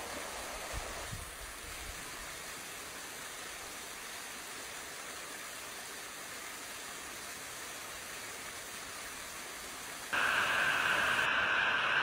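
Steady rush of a small creek running over rocks. About two seconds before the end it cuts suddenly to the louder, hissier rush of a waterfall pouring into a pool.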